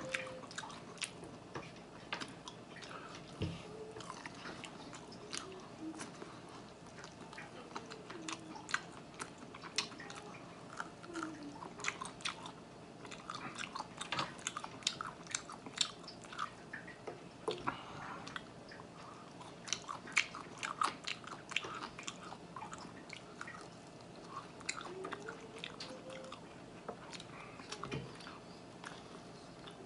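Close-miked chewing and biting of buffalo chicken wings: a scatter of short, sharp, wet mouth clicks and smacks.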